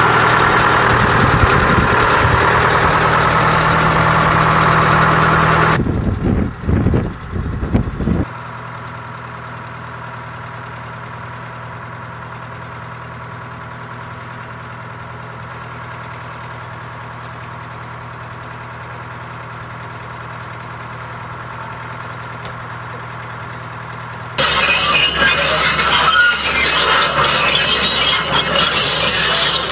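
Engines of heavy equipment running. It is loud at first, drops abruptly after about eight seconds to a quieter steady idle, and turns loud again abruptly about twenty-four seconds in.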